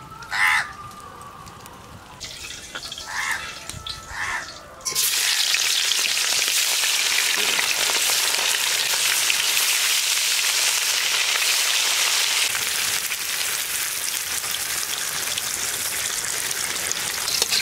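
Fish pieces frying in hot mustard oil in a metal kadai: a loud, dense sizzle that starts suddenly about five seconds in and eases a little later on. Before it, a bird calls twice.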